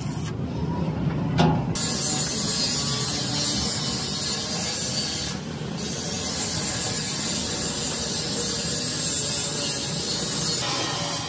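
Stick arc welding on a steel mixer shaft and its paddle arms: the arc crackles steadily, starting about two seconds in, breaking off briefly about halfway through, and stopping shortly before the end.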